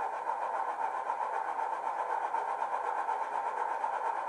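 Sampled sound of a BR Class 27 diesel's Sulzer six-cylinder engine idling steadily, played by a DCC sound decoder through a small 27mm bass-enhanced speaker in a Heljan OO-gauge model.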